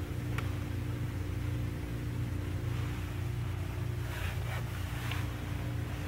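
Steady low mechanical hum with a faint higher steady tone over it. A few faint, brief scrapes and rustles come about half a second in and again around four and five seconds in.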